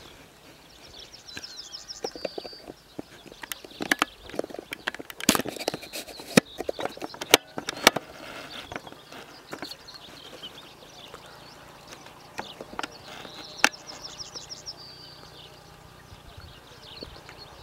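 A small bird singing a high, quick trill of repeated notes, twice, about eleven seconds apart. A cluster of sharp clicks and knocks, louder than the song, comes between the two songs.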